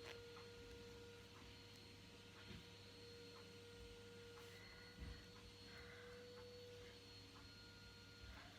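Near silence: room tone with a faint steady hum and a thin, constant high tone, broken by a few faint small clicks.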